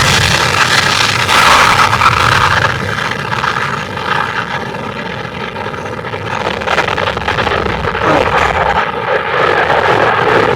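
Jet engines of a departing Airbus A321ceo at takeoff power: a loud rushing roar with a steady whine through it, easing a little in the middle and building again near the end.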